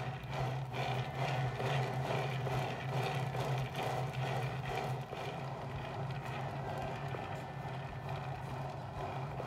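Metal offset spatula scraping and smoothing soft cream cheese icing on a cake while a plastic cake turntable is turned by hand, over a steady low hum. The scraping is a little louder in the first half.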